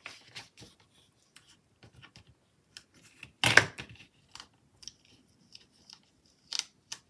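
Paper rustling and light ticks from fingers handling and peeling up a paper sticker on a planner page, with one louder sharp crackle about three and a half seconds in.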